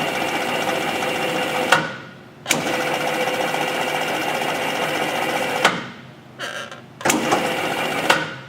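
Peddinghaus Perfeckt 32 CAB CNC rebar bender's drive running in automatic bending cycles, a steady mechanical whine. It stops with a click about two seconds in, starts again half a second later, stops again with a click near six seconds, and runs once more before a final click near the end.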